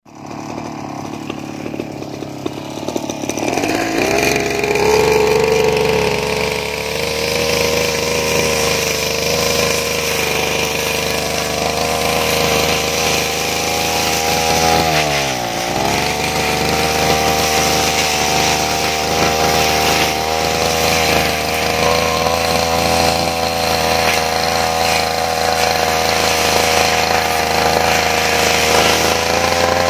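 Brush cutter engine running: lower and rougher for the first few seconds, then throttled up to a steady high speed. About halfway through it drops briefly and revs back up.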